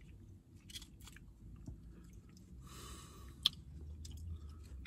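Close-up chewing of a fast-food chicken nugget, with faint rustles and one sharp click about three and a half seconds in.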